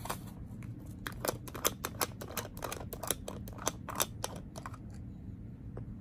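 Rapid irregular clicks and taps from a jar candle and its packaging being handled and opened. Near the end comes a long, soft sniff: the candle being smelled.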